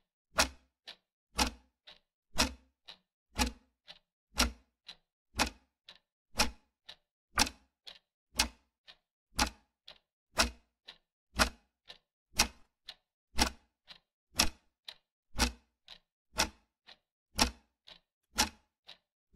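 Ticking-clock sound effect: a loud tick once a second with a fainter tock between, marking the countdown of a timed quiz.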